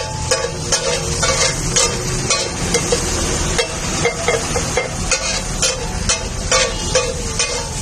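Metal spatula scraping and clacking on a flat iron tawa as chopped green capsicum fries in foaming butter, with sharp irregular clacks about two or three a second over the sizzle. A steady low rumble runs underneath.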